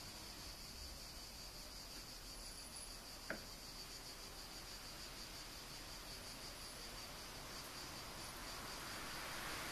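Crickets chirping steadily in a high, evenly pulsing trill, with a single sharp click about three seconds in as the xenon headlight strikes and lights.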